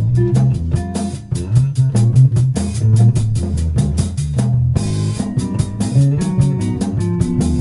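Live jazz-fusion band: hollow-body electric guitar, electric bass and drum kit playing together over a busy bass line, with a cymbal crash about five seconds in.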